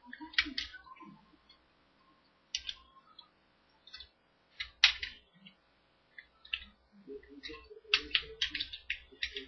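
Hard plastic clicking and snapping from a G1 Transformers Dinobot toy being turned and transformed by hand. There are scattered sharp clicks, the loudest about five seconds in, and a quick run of clicks near the end.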